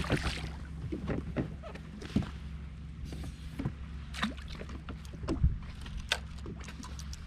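Small splashes of water against a jet ski's hull, with scattered clicks and knocks from the fishing rod and gear and a few louder thuds, over a steady low hum.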